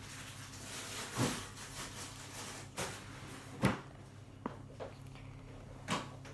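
A few short clicks and knocks, the loudest near the middle, over a faint steady hiss, from fingers handling and picking at the shell of a small Hatchimals CollEGGtibles toy egg.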